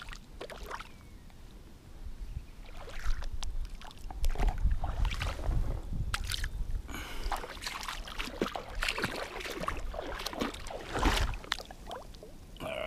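Irregular splashing and sloshing in shallow water as a hand grabs at a hooked flathead at the surface, with low rumbling beneath, busiest from about two seconds in.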